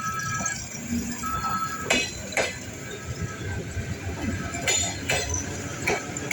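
Train at a station: a low rumble with short repeated two-tone beeps, then sharp metallic clicks in pairs about half a second apart.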